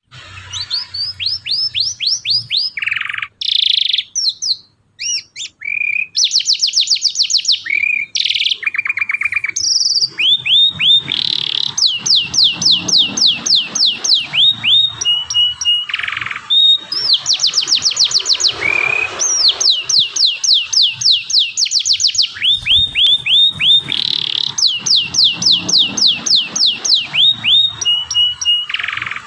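Yellow domestic canary singing: long rolls of quick down-slurred notes, about six a second, alternating with short buzzy phrases, with a brief pause about four seconds in.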